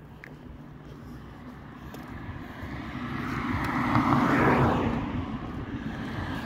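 A car driving past on the street, growing louder to a peak about four seconds in and then fading away.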